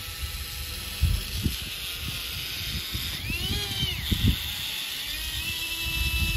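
Electric drive motor of a radio-controlled tracked tractor whining under load as it pulls a seeder through damp soil. The pitch rises and falls about three seconds in, then holds steady near the end, over low wind rumble and thumps on the microphone.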